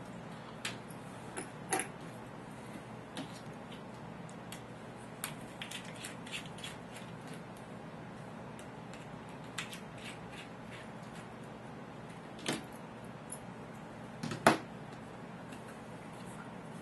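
Scattered small clicks and taps of a screwdriver working the screws of a laptop hard drive's metal side brackets and the parts being handled, with one louder knock near the end.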